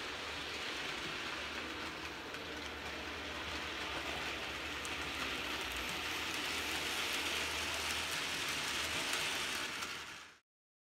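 Model railway locomotive hauling a rake of goods wagons along the track: a steady whir and rattle of the small motor and the wheels on the rails, growing a little louder as it passes close, then cutting off suddenly near the end.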